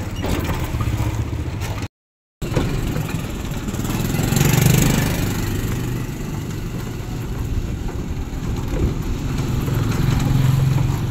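Motorcycle engine of a tricycle running steadily, heard from the sidecar with road noise; it grows louder for a moment about four to five seconds in. The audio cuts out briefly about two seconds in.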